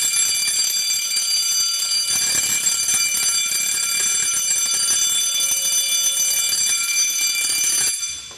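Fire alarm bell on an Asenware CFP2166 conventional fire alarm system ringing continuously and loudly, cutting off about eight seconds in.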